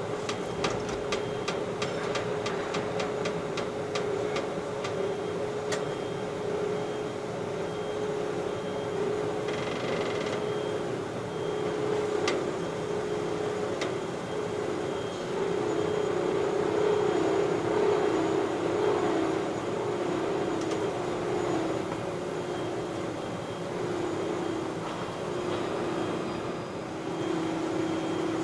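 Schlatter rail butt-welding machine running with a steady hum that wavers in pitch in the second half, with a quick run of clicks in the first few seconds and a few single knocks.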